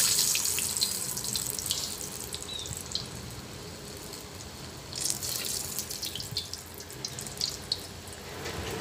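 Gulgule batter deep-frying in hot mustard oil in a kadhai, sizzling with fine crackles. The sizzle flares up sharply at the start and again about five seconds in, as fresh handfuls of batter go into the oil.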